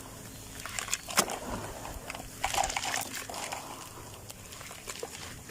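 Dry grey sand-cement crumbling and crunching, with a sharp crack about a second in and a longer burst of crumbling around two and a half seconds in.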